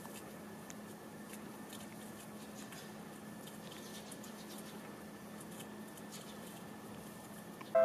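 Faint, steady outdoor background hum with a few scattered light ticks, no distinct event; piano music cuts in right at the very end.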